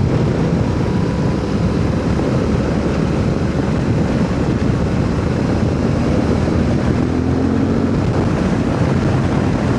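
Motorcycle engine running at a steady cruise, mixed with wind rushing over the microphone. The engine note shifts slightly from about six seconds in.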